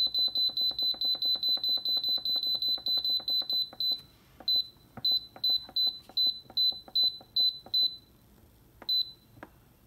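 Instant Pot Duo control panel beeping as its time-adjust button is held and pressed to set the pressure-cook time: short high beeps come about six a second, slow to about three a second about four seconds in, stop near eight seconds, and one last beep sounds near the end.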